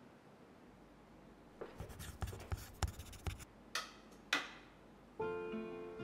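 A run of small knocks and clicks from coffee gear being handled on a counter, then two sharper clinks. Acoustic guitar music starts about five seconds in.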